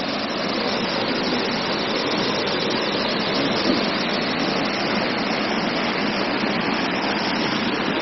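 Waterfall at Triberg rushing steadily over rocks into a pool: a constant hiss of falling water.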